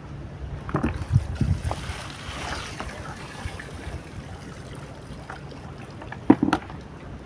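Water pouring and splashing out of a plastic bucket of soaked bread as it is drained for groundbait, with wind rumbling on the microphone. Near the end a couple of sharp knocks as the bucket is set down.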